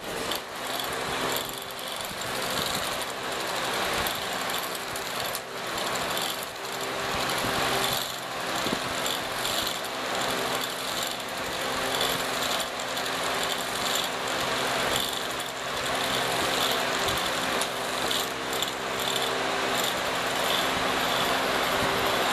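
Electronic flutter-butterfly cat toy's small motor whirring steadily as it swings the butterfly on its wire, with irregular clicks throughout.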